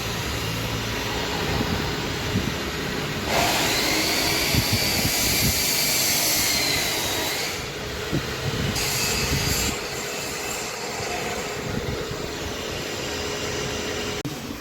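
Steady mechanical running noise with a faint steady hum; about three seconds in a loud high hiss joins it for some four seconds, and a shorter hiss follows a little later.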